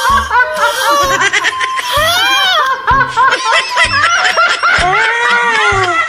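Background music with a steady beat, mixed with laughter.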